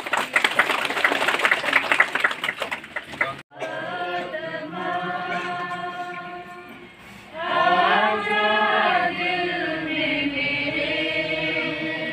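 A few seconds of dense crowd noise cut off abruptly. Then a congregation sings a hymn together in long held notes, growing louder about halfway through.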